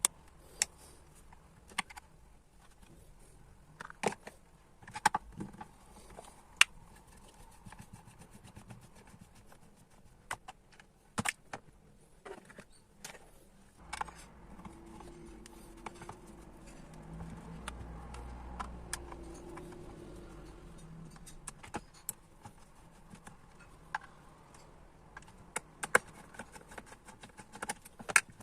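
Scattered sharp clicks and knocks of tools and plastic housing parts being handled as a clothes iron is taken apart. A low hum swells and fades in the middle.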